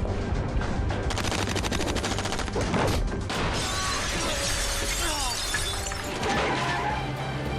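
Action-scene soundtrack: dramatic score music mixed with a rapid run of sharp cracks and crashes between about one and three seconds in.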